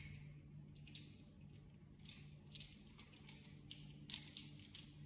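Faint clicks and rustles of tripod stand parts being handled as a bracket is fitted, over a low steady hum.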